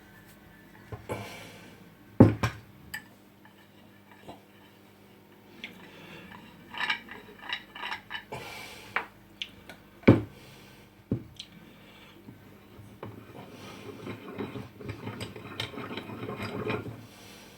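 Metal tools and parts being handled on a workbench: scattered clinks and knocks, the sharpest about two seconds in and again about ten seconds in, with rustling handling in between that grows busier near the end.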